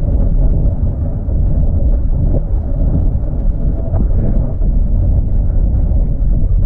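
Vehicle driving, a loud steady low rumble of engine and road noise with a faint steady hum above it; cuts off suddenly at the end.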